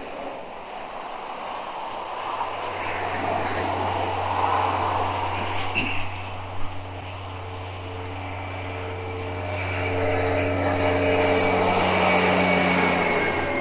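A vehicle engine running with a steady low hum and some higher steady tones over a wash of road or wind noise. It grows louder through the second half and cuts off abruptly at the end.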